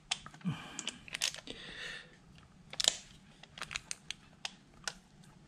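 Irregular light clicks and short scrapes of a hand tool moving against the aluminium intake manifold, the sharpest click nearly three seconds in.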